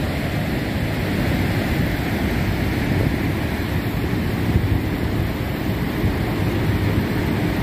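Niagara Falls: a steady, low rush of falling water that holds level throughout.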